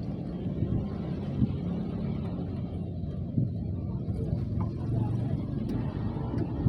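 Steady low rumbling noise with a few faint ticks.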